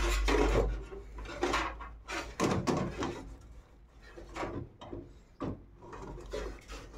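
Plastic clicks, knocks and rubbing as the PC power supply's 24-pin motherboard connector and its cable bundle are handled and pushed into the motherboard socket. The noises come in scattered short bursts, loudest in the first second.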